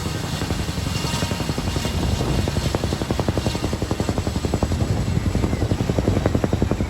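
Boeing CH-47D Chinook tandem-rotor helicopter in flight, its rotor blades chopping in a fast, even rhythm that grows sharper about two and a half seconds in.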